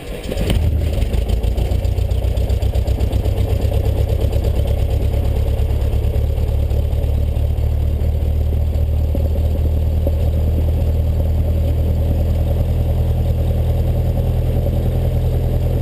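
A Cessna 172's piston engine catches about half a second in, at the end of the starter cranking, then settles into a steady idle with a deep, even throb. It is heard from inside the cabin.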